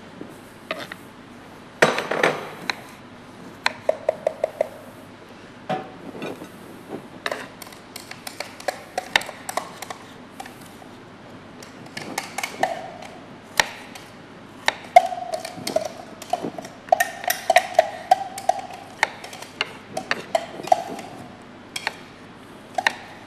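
Irregular knocks and taps of a knife on a wooden cutting board as cubed pumpkin is chopped and gathered, with scattered clinks of dishes and utensils, several of which ring briefly.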